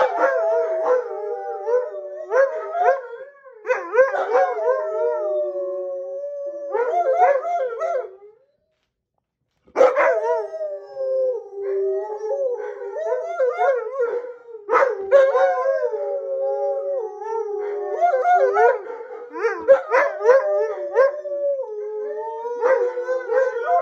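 Two Alaskan Malamutes howling together, their voices overlapping and wavering up and down in pitch. They break off for about a second and a half some eight seconds in, then start again.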